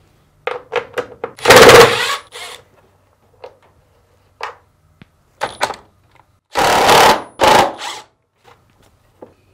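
Power driver backing out the two screws of a dryer's motor mounting clamps: two short bursts of the tool running, about five seconds apart, with small handling clicks between.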